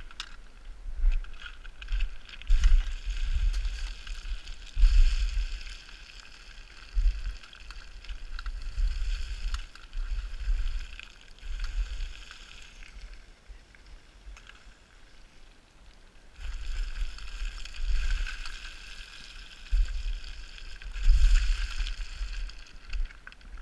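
Boots crunching and sliding down loose limestone scree, with a rushing hiss of shifting stones in two long stretches. Irregular low thumps and rumble on the microphone go along with the steps.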